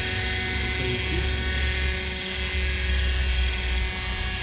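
Hirobo Sceadu radio-controlled helicopter in flight: a steady, even whine from its rotor head and drive, with a low rumble underneath that swells and fades.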